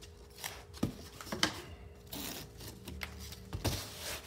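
MDF fibreboard panels being separated and handled on a workbench: a string of sharp knocks and clicks with short scraping and sliding sounds. Near the end, double-sided template tape is peeled off a panel.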